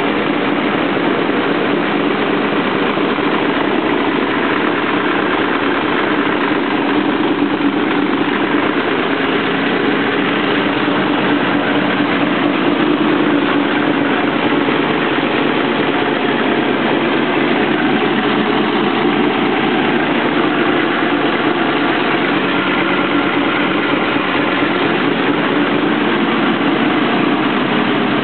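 Car engine, freshly rebuilt with new camshafts, idling steadily with an exhaust leak sounding over it; the owner is listening for an unexplained engine noise that the leak partly masks.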